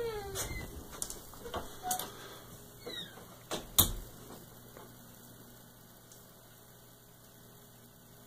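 Handling noise from a handheld camera being moved and brought to rest: scattered clicks and small knocks, a short squeak falling in pitch near the start, and a sharp knock nearly four seconds in. After that only a faint steady low hum.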